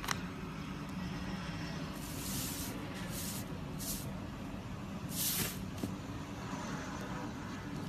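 Iceberg slime's hardened top crust crackling in short bursts as it is pressed and broken, four times, over a low steady hum.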